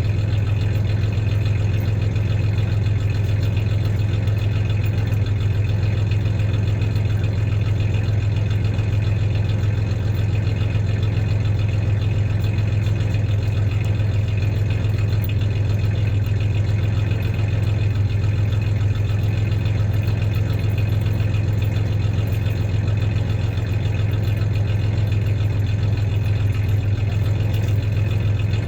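1993 Ford Ranger's 3.0-litre V6 idling steadily with a slight misfire.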